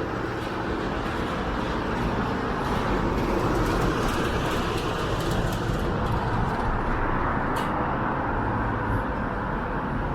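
Steady rumble and hiss of vehicle noise, rising slightly over the first few seconds.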